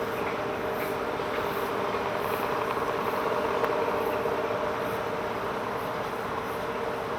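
Steady vehicle noise with a constant low hum, unchanging in level throughout.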